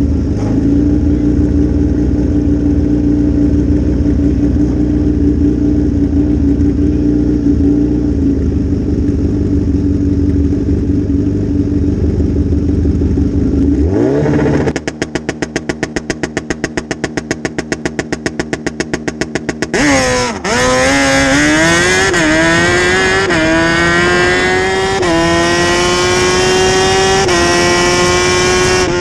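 Suzuki Hayabusa drag bike's inline-four engine idling at the start line, then revved up and held on a rev limiter as a rapid, even stutter for about five seconds. It then launches and pulls hard down the strip, the pitch climbing and dropping back at each of four upshifts.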